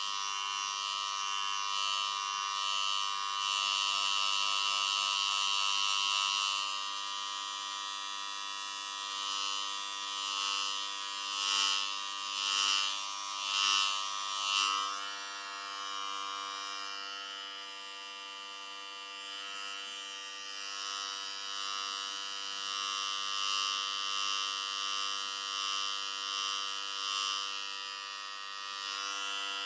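Electric hair clippers running with a steady buzz. The buzz swells louder from about three to seven seconds in, then in four pulses about a second apart midway through.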